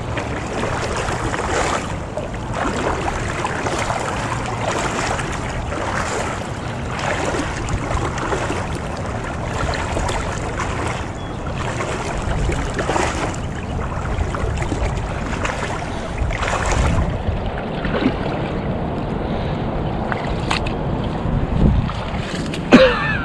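River water rushing and sloshing around a person's legs as he wades through a shallow current toward the bank, in repeated surges with each stride, with wind on the microphone. A brief louder sound comes near the end.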